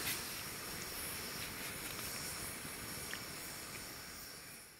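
Wood campfire burning with a steady hiss and a few faint crackles, slowly fading out near the end.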